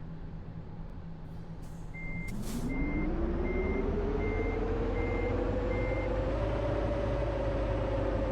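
A tour bus's engine idling, then a short hiss of air, like an air brake releasing, about two seconds in. A reversing alarm beeps six times, a little over once a second, while the engine picks up and its pitch climbs and then holds as the bus moves.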